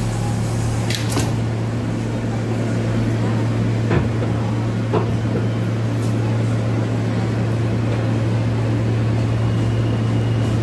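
Inside a New York City subway car on the J line: the doors shut with a click about a second in, then the train pulls out of the station with a steady low hum of its motors and ventilation, and a couple of knocks from the car.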